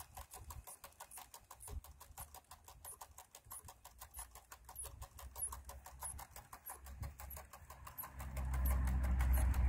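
Rapid, even ticking of the Hasler Bern recording speedometers' clockwork (chronometric) mechanism while the speedometers run. About 8 seconds in, a louder low hum from the universal motor driving the tachogenerator by belt rises under the ticking.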